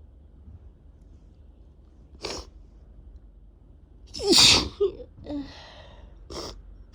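One loud, messy human sneeze about four seconds in, from a head cold with a very runny, irritated nose. Shorter, fainter breathy sounds come a couple of seconds before it and twice after it.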